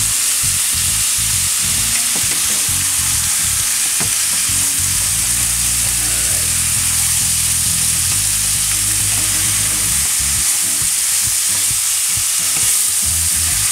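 Chicken with onions, bell peppers, tomatoes and garlic sizzling steadily in a hot stainless steel sauté pan, stirred and tossed with a spatula.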